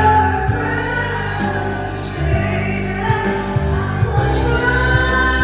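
Background music: a love song with a singer's voice over steady bass notes.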